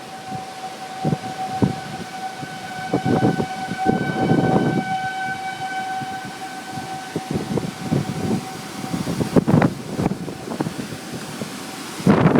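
Outdoor tornado warning siren sounding one steady tone that fades out about eight seconds in, over gusting wind and scattered knocks.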